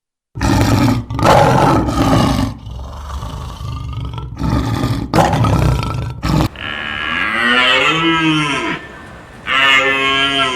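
Cattle mooing. A run of loud, rough bursts comes first, then two pitched moos: a long one that rises and falls in pitch, and a shorter one near the end.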